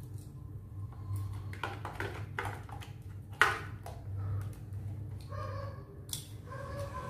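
Small clicks and taps of hard plastic parts being handled and worked on a toy RC vehicle's wheeled chassis, with one sharp knock about halfway through. A low steady hum runs underneath.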